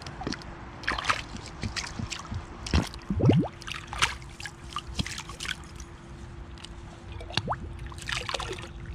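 An old glass bottle being swished and rinsed by hand in shallow river water: irregular splashing and sloshing, with a loud gurgle about three seconds in as water runs in and out of the bottle.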